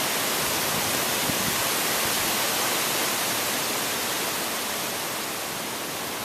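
Strong storm wind blowing through large trees: a steady, loud rushing noise that eases slightly in the second half.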